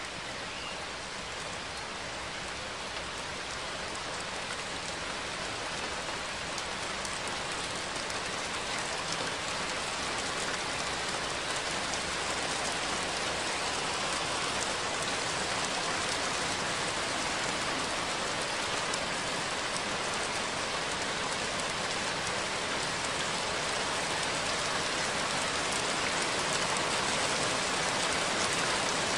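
Steady rain falling: a dense, even hiss of drops with faint individual drop ticks, gradually getting louder.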